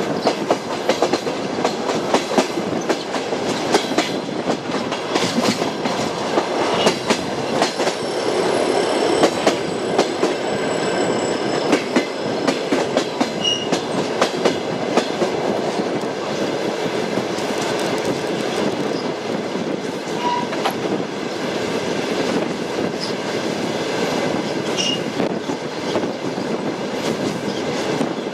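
Train wheels clicking over rail joints with the steady rolling rumble of the carriages. Faint high-pitched wheel squeal comes in briefly around a third of the way through.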